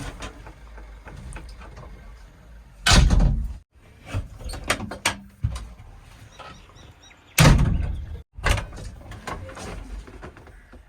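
Wooden logs being loaded, giving two heavy clattering thuds about four and a half seconds apart with lighter knocks between them, over the low steady rumble of a running diesel engine.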